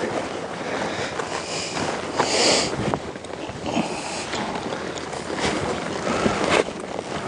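Wind buffeting the microphone: a steady rushing hiss, briefly louder about two and a half seconds in.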